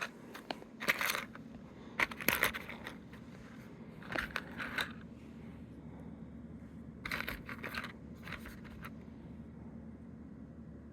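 Small plastic Lego minifigure parts clicking and clattering as they are handled, in several short bursts of sharp clicks.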